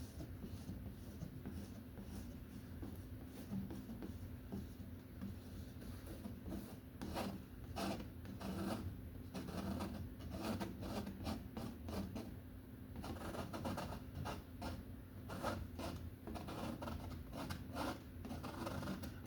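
Brush scrubbing acrylic paint onto a canvas in many short strokes. The strokes come faster and more regularly from about a third of the way in.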